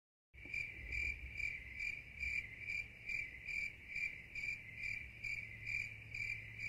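Cricket chirping in an even rhythm, about two to three chirps a second, beginning abruptly just after the start.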